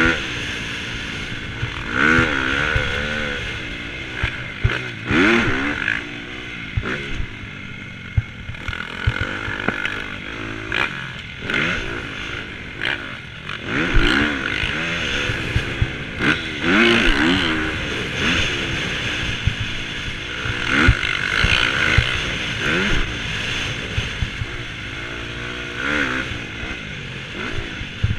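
Dirt bike engine revving up and dropping off again and again as it is ridden over a motocross track, heard from a helmet camera with wind rush over the microphone. Short sharp knocks and clatter from the bike and the rough ground come through now and then.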